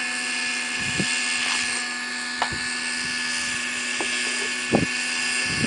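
Align T-Rex 600 Nitro Pro radio-controlled helicopter in flight: its nitro glow-fuel engine and rotors give a steady buzzing drone. A few short thumps break through, the loudest near the end.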